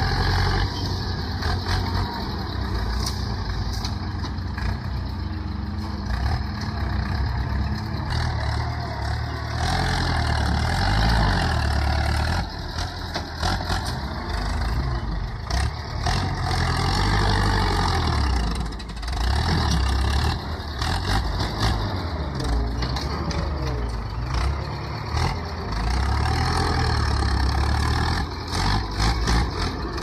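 Farm tractor's diesel engine working under load as its front dozer blade pushes soil and brush, its note swelling and easing as the load changes, with scattered cracks and knocks.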